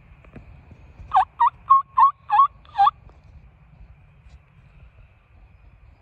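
Wild turkey yelping: a run of six loud, evenly spaced notes over about two seconds, starting about a second in.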